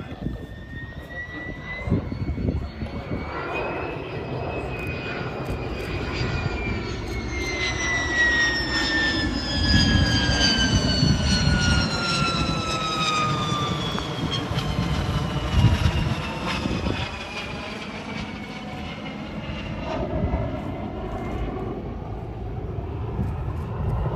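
Lockheed U-2S reconnaissance jet's single turbofan engine as it flies past low. A whine rises a little at first, then slides steadily down in pitch as the aircraft passes, over a low rumble that is loudest around ten seconds in.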